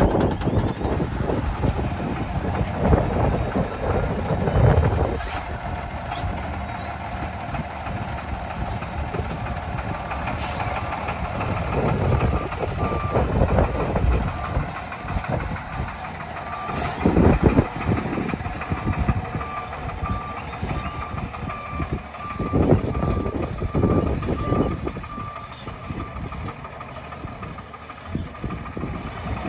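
Diesel engine of a Kenworth T300 tandem-axle gravel truck running as the truck manoeuvres. Its reversing alarm beeps steadily from about a third of the way in until near the end.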